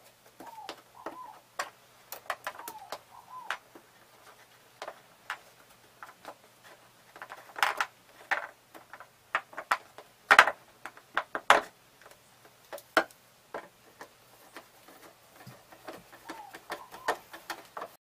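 Irregular clicks, taps and knocks from handling the bare copper-wire connections of an ultracapacitor bank by hand and with a screwdriver. The knocks are loudest between about eight and twelve seconds in. A bird calls a few short notes at the start and again near the end.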